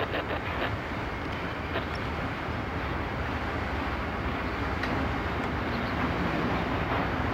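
CSX diesel locomotive running at low speed as it pulls a cut of covered hoppers, a steady engine and wheel rumble with a few light clicks, growing slowly louder as it draws near.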